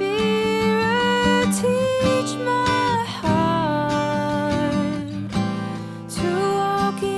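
Background music: acoustic guitar strumming under a slow melody of long held notes.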